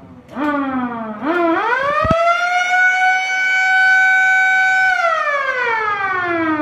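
Motor-driven siren wailing. A short blip rises and falls about half a second in; then the siren winds up to a steady high wail held for about two seconds and slowly winds down.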